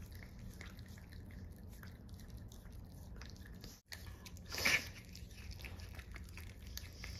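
A basenji's teeth being brushed with a plastic dog toothbrush while the dog chews and bites on it: soft scrubbing and rustling with many small clicks of teeth on the brush, and one louder brief noise just past the middle.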